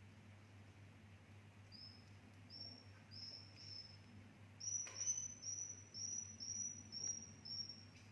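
Swiftlets giving their night roosting calls: a run of short, high chirps about two a second, starting a couple of seconds in. There is one sharp click about five seconds in, over a low steady hum.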